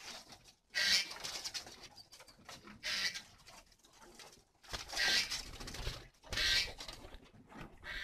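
Spotted doves cooing, with four short hissing bursts, the loudest sounds.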